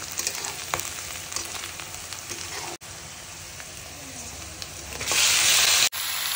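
Chopped onion and garlic sizzling in hot oil in an iron kadai, with a spatula scraping and stirring through it. Near the end the sizzling gets much louder for about a second.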